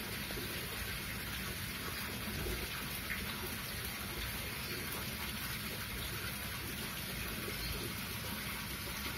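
Steady, even hiss of rain, with no meows or other distinct sounds.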